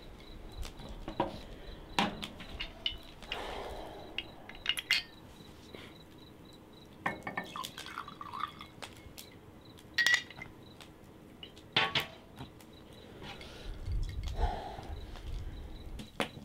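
Scattered sharp clicks, knocks and light clinks of small hard objects being handled on a table, with bits of rustling in between.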